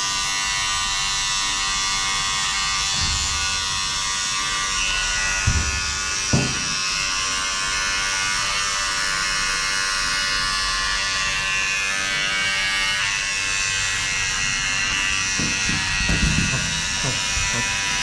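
Electric pet hair clippers running steadily with an even motor hum while shaving a cat's fur, with two short knocks about five and six seconds in.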